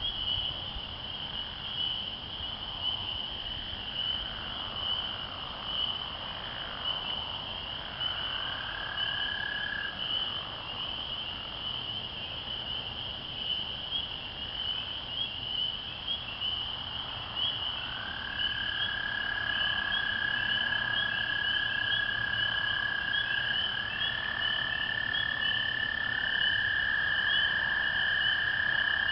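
Night chorus of spring peepers, a dense steady peeping. American toads' long, even trills join it: a short one about eight seconds in, then from about eighteen seconds on a longer one that other trills overlap, and the chorus grows louder.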